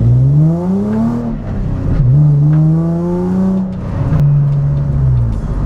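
Nissan 350Z's V6 engine accelerating under throttle. Its pitch climbs for about a second, falls back, climbs again from about two seconds in, and drops once more near four seconds in before easing off.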